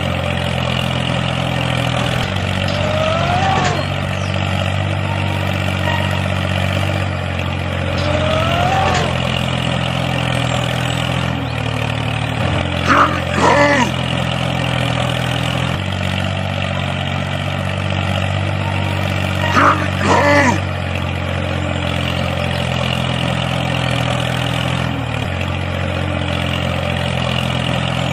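Low, steady engine drone like a tractor running at idle, its pitch stepping slightly a few times, with a few short higher-pitched sounds over it.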